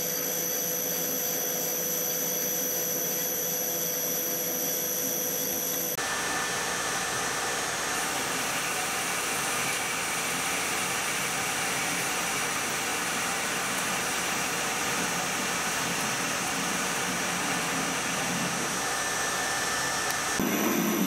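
Metal lathe running and cutting a steel cam blank, with a steady whine from the spindle drive. About six seconds in the sound changes abruptly to a denser, even hiss as the lathe faces the end of the part under coolant mist.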